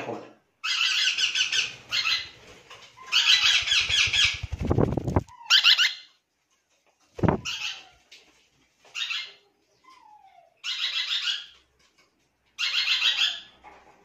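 Young hand-reared parrots squawking in repeated short bursts, with a couple of brief falling whistles: the begging calls of chicks being fed formula from a syringe.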